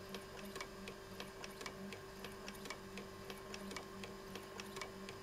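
Bernina 910 Electronic sewing machine running at its lowest speed, about 50 stitches a minute after a 33 kOhm resistor was added to its speed-control board: a faint steady motor hum with light ticking from the mechanism, several ticks a second.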